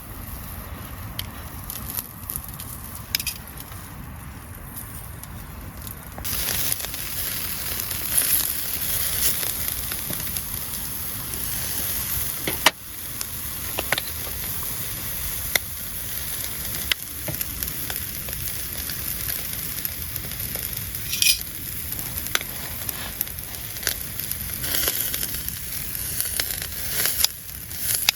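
Food frying in a pan with a steady sizzle and scattered crackling pops; the sizzle turns louder about six seconds in. One sharp clack about twelve seconds in.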